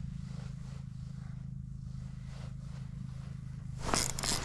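A steady low hum, with brief rustling and scraping noises starting near the end.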